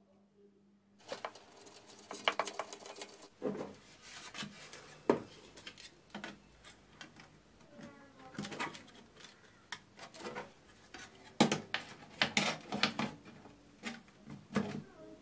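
Irregular clicks, knocks and light clatter of parts and wires being handled and connected, starting about a second in. Under them is a faint steady low hum from the amplifier, which sounds like power-supply hum.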